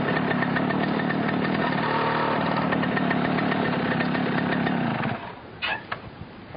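Yamaha RX100's two-stroke single-cylinder engine running steadily, its note shifting briefly about two seconds in, then cutting out about five seconds in. A short sharp knock follows near the end.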